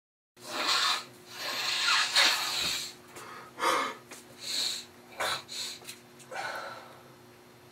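A run of short rustling, breathy noises from a man working at a workbench, the loudest in the first three seconds and then shorter and fainter. A steady low electrical hum runs under them.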